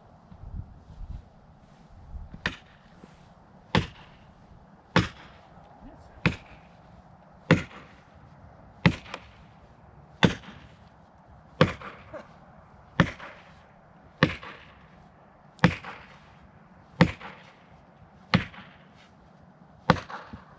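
A felling wedge being driven into a tree's cut with steady, sharp hammer blows, about one every second and a third, fourteen strikes in all.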